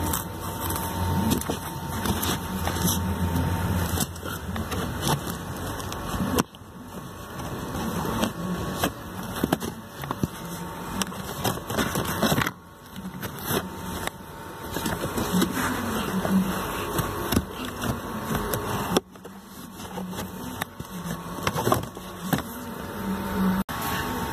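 Pleated cabin air filter being pushed and worked into its plastic housing in a Renault Clio: uneven scraping, rustling and knocking of the filter frame against the plastic, with a few sudden drops in level.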